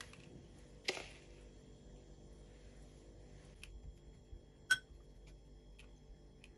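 A metal spoon works crushed biscuit crumbs in a glass cup, with quiet scraping and light ticks. There is a soft knock about a second in, and one sharp clink of spoon on glass with a brief ring near the middle.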